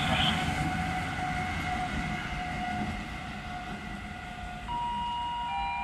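Rail Polonia Dragon electric locomotive rolling past and moving away, its wheels rumbling on the rails and fading. Near the end a station announcement chime starts, two ringing notes, the second lower than the first.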